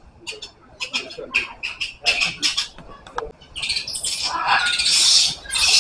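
Harsh animal squawks: short scattered calls, then a longer, louder run of squawking from about four seconds in.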